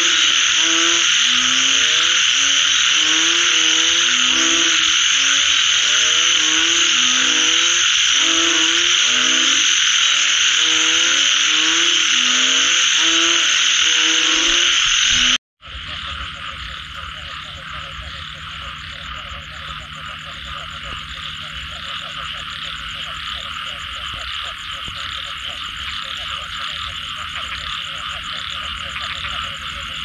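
Chorus of frogs calling after rain: a dense high-pitched chorus with deep croaks repeated in short rising runs. About halfway the sound cuts out briefly, then a quieter chorus of rapid pulsing frog calls carries on.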